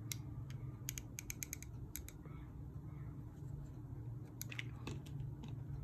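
Scattered small sharp clicks from crochet tools and materials being handled, some in quick runs of three or four, bunched about a second in and again around four and a half seconds. A steady low hum runs underneath.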